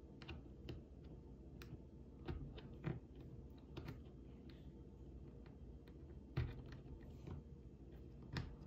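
Faint, scattered clicks and taps of an LED's leads and a jumper wire being pushed into the sockets of a plastic solderless breadboard, with a louder tap about six and a half seconds in.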